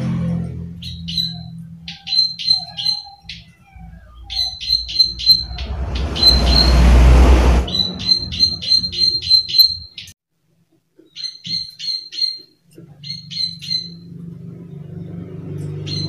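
Plain prinia (prenjak sawah) giving its sharp "klik" call notes in quick bouts of three to six. A loud rushing noise covers the calls for about a second and a half in the middle.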